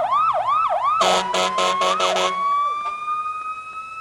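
Fire engine siren, first in a fast up-and-down yelp, then about five short blasts of the air horn over it, then settling into a slow rising wail that fades near the end.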